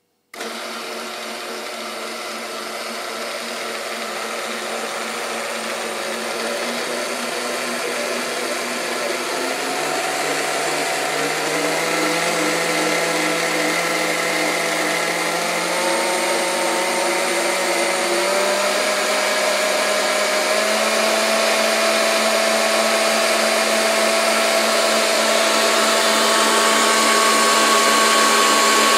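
Kenwood stand mixer's electric motor switching on and running, with a steady whine. The speed dial is turned up toward maximum, so the whine rises in pitch in several steps and grows louder.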